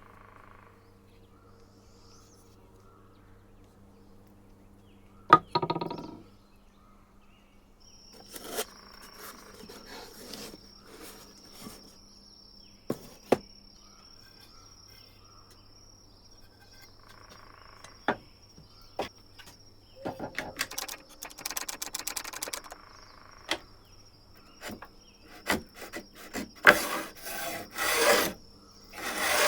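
Scraping strokes of a hand tool working wood, scattered at first and becoming a quick run of loud strokes near the end, with a single knock about five seconds in. A faint steady high whine sits under the strokes from about eight seconds on.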